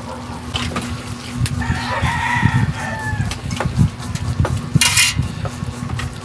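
A rooster crows once in the background, one drawn-out call of about a second and a half, starting a little under two seconds in. Underneath, a wooden spatula stirs chicken livers in thick sauce in a frying pan, with soft low knocks, over a steady low hum.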